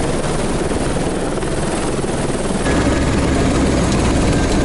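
Helicopter turbine and rotor running steadily, heard close up from on board. About two and a half seconds in the sound shifts to a slightly louder, heavier-bottomed version as the view moves into the cockpit.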